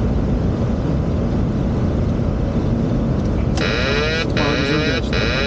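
Boeing 737 flight-deck noise on approach: a steady rush of airflow and engine rumble. About three and a half seconds in, a high electronic tone comes in over it, pulsing on and off in roughly half-second beeps.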